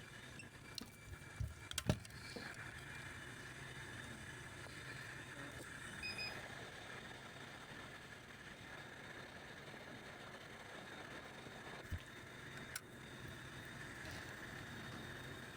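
Faint steady hum with a handful of short, sharp clicks and taps: a cluster about one to two seconds in, the loudest near two seconds, and two more around twelve to thirteen seconds.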